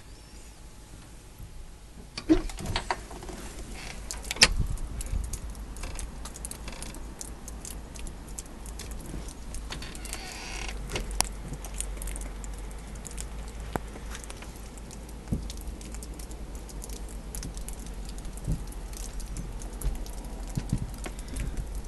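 Low rumble on a phone microphone with scattered clicks and crunches; the two loudest clicks come about two and four seconds in.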